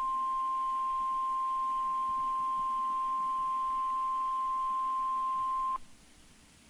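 NOAA Weather Radio warning alarm tone: one steady high-pitched tone that cuts off suddenly near the end, leaving faint radio hiss. It signals that an urgent alert is about to be read, here a tornado watch.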